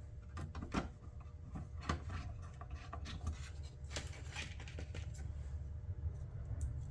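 Irregular light clicks, taps and rubbing of small parts being handled on a bench, over a steady low hum.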